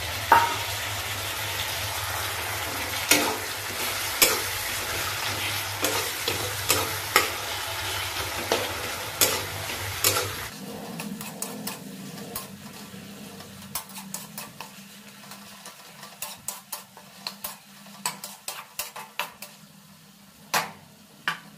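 Chopped tomato, onion and green chillies sizzling in oil in a metal kadai while a spatula stirs and scrapes, clicking against the pan. About halfway through the sizzle drops away and the spatula clicks come quicker and closer together over a faint low hum.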